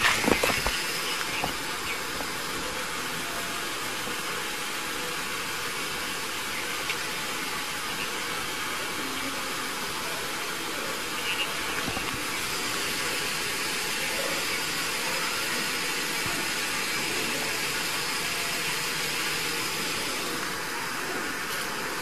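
Steady hissing background noise picked up by a body-worn camera's microphone outdoors, with a few brief rustles in the first second or two.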